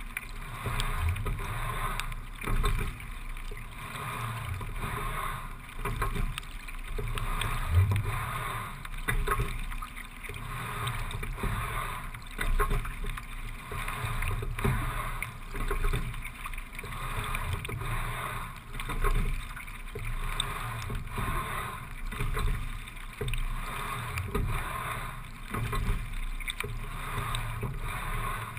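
Single scull being rowed at a low, steady rate of about 17 to 18 strokes a minute: water rushing along the hull, with sharp knocks from the oars and oarlocks recurring through the strokes.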